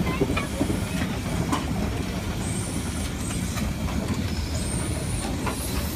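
SNCF 140 C steam locomotive and its tender, heard from close by: a steady low rumble with a few faint, irregular knocks.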